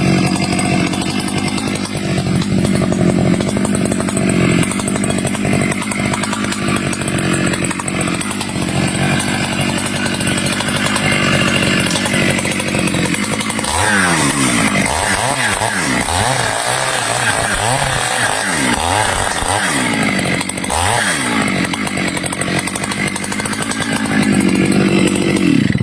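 Stihl chainsaw running at high revs cutting teak. About halfway through, the engine speed swings up and down repeatedly for several seconds, then holds steady again before cutting off abruptly at the end.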